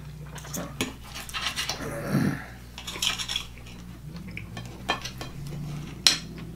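Knives and forks scraping and clinking on plates as steak is cut, in irregular short clicks, the sharpest about six seconds in.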